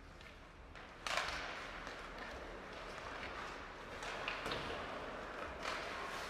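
Ice hockey play on the rink: skates scraping the ice, with scattered sharp taps and thuds from sticks, puck and boards. It starts suddenly about a second in after a quieter start.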